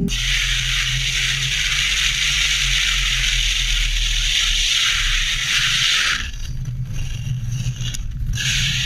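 A car at high speed, with a strong rush of wind and road noise over a low engine drone. About six seconds in the rushing drops away and dirt and gravel crunch and scrape as the car runs off the road into the dirt.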